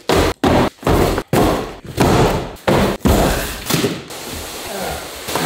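A rapid series of loud thumps and bumps from cardboard boxes and gear being handled close to the microphone, each cut off abruptly, about seven in the first four seconds. A softer rustling follows near the end.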